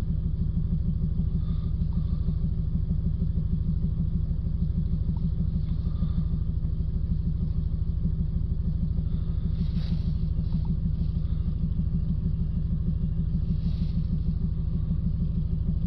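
Mercedes Vito diesel engine idling steadily, heard from inside the cab as a low, evenly pulsing rumble. The engine has a heavy breathing sound, which the mechanic suspects is exhaust gas being pushed back out through the inlet and air intake.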